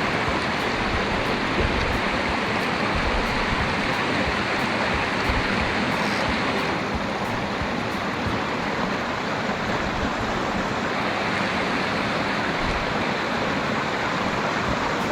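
Mountain stream running steadily: a constant rush of flowing water.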